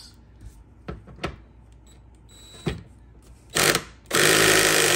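Cordless drill-driver removing a screw: a short spin, then a steady run for about a second near the end. A few light clicks of tool handling come before.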